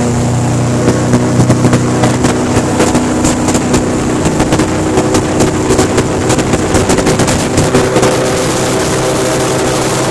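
Airboat engine and caged air propeller running steadily at speed, loud and unbroken. Frequent short crackles come from wind buffeting the microphone.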